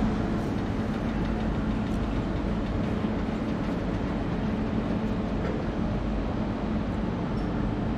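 CFR electric locomotive, built in 1987, rolling slowly past at close range: a steady running rumble with an even hum.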